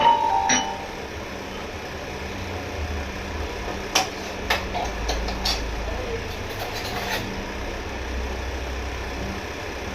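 A steady low mechanical hum, with a handful of sharp clicks and knocks between about four and seven seconds in, the first one the loudest.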